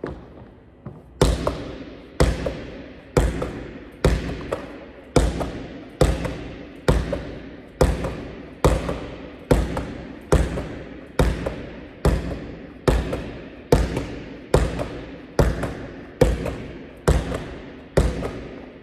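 A basketball thrown in rapid chest passes strikes a wall on the full and is caught on the rebound: about twenty sharp thuds a little under a second apart, each echoing in the hard-walled gym hall.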